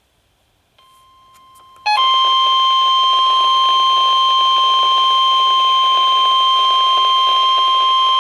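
NOAA Weather Radio 1050 Hz warning alarm tone: after a faint tone and a few clicks, a single loud, steady tone starts about two seconds in and holds. It signals that a warning-level alert, here a tornado watch, is about to be broadcast.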